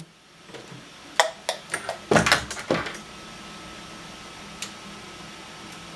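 Small clicks and knocks of a replacement cartridge fuse and its holder being handled inside an opened microwave oven, with a louder cluster of clunks about two seconds in and a single click later.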